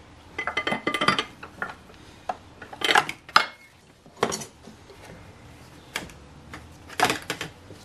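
Scattered metallic clinks and clatters of tools against the engine-driven cooling fan and its clutch nut as the reverse-threaded fan is worked loose from the water pump: a quick run of small clinks early, then several single sharper knocks.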